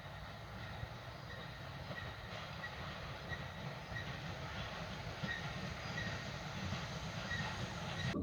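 Approaching steam locomotive running with a low rumble and a short, high squeak that repeats about every three-quarters of a second, growing slowly louder as it nears.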